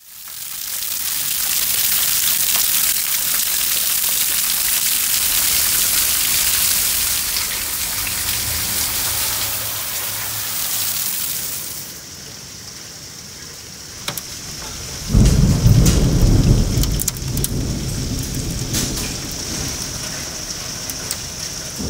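Heavy rain and hail pounding down in a dense, loud hiss. About twelve seconds in it gives way to a quieter patter with sharp clicks of hailstones and rain striking a metal barbecue grill. A loud rumble of thunder follows about fifteen seconds in.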